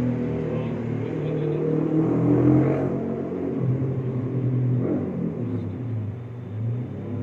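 Motor vehicle engines running and revving, their pitch rising and falling, loudest about two and a half seconds in.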